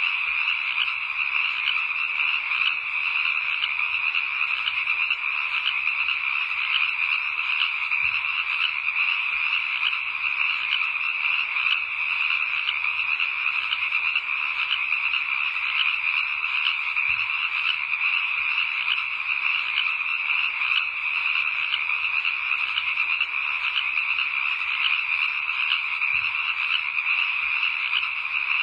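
A dense, steady chorus of calling frogs: a constant high-pitched, rapidly pulsing din that never breaks, as in a night-time ambience.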